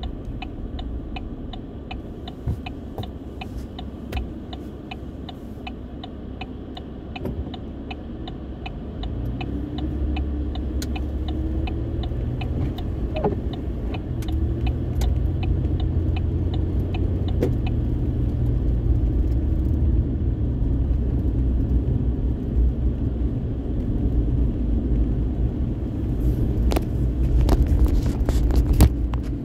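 A car driving, with a low road and engine rumble that grows louder about nine seconds in. A light regular ticking, about three a second, runs through the first part, and there are a few sharp clicks near the end.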